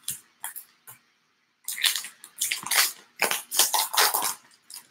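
Crinkling of a trading-card pack wrapper and rustling of cards being slid out of it by hand. There are a few faint clicks at first, then a run of short, dense rustles from about a second and a half in.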